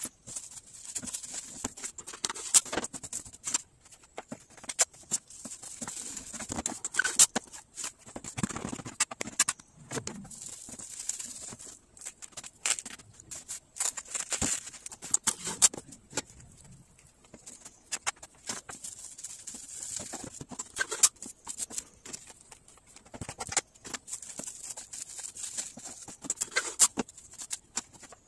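Plastic cling wrap crinkling and rustling as portions of ground meat are wrapped by hand, in uneven spells of dense crackling with sharper crackles here and there and short lulls between.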